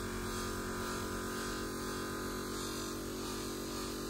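Bench buffing wheel's electric motor running with a steady hum while a small steel pin is held against the spinning wheel to polish it.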